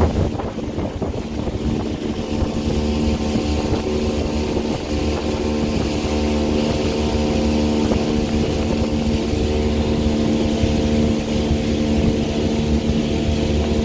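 Fishing boat's motor running steadily at a constant speed, with a hiss of water and wind over it.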